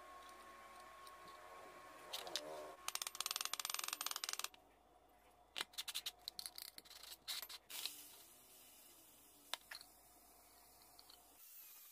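Steel pins and a bolt clinking and rattling against a steel bending die as they are fitted into its holes: a quick run of rapid small clicks about three seconds in, then scattered light clicks.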